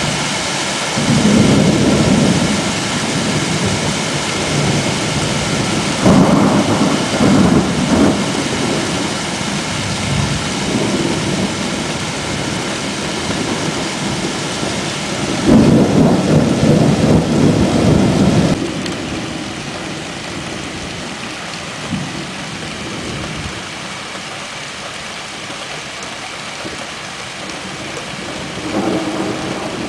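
Thunder rolling over a steady hiss of rain in a thunderstorm: several deep rumbles, the loudest from about a quarter of a minute in, with another starting near the end.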